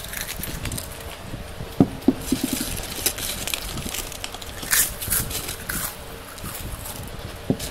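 Potato chips crunching as several people chew them fast, a continual run of crisp crackles and clicks. A few dull knocks sound about two seconds in and near the end.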